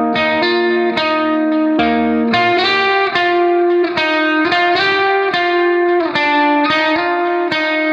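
Background music: plucked guitar playing a melody of quick notes with a steady pulse.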